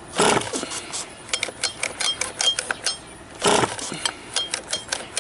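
Pull starter on a Losi 5ive B's OBR 34cc two-stroke engine being yanked twice, about three and a half seconds apart, each pull a short rasping whirr, with light clicking in between. The engine turns over without catching, a no-start later traced to a bad kill switch connection.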